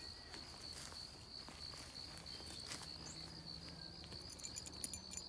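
Crickets chirping in a steady, fast, even trill, with faint scattered clicks and rustles.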